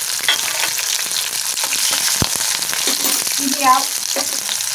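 Diced capsicum and green peas sizzling in hot oil in a steel kadai: a steady hiss full of fine crackles, with one sharp tick about two seconds in.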